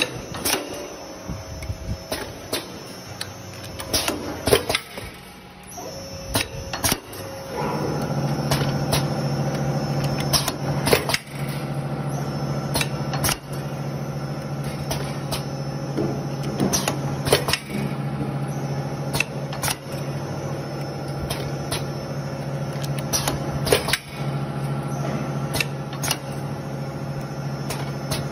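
Paper baking-cup forming machine running, its moving parts clacking again and again at an uneven pace. A steady machine hum joins about eight seconds in and runs on under the clacks.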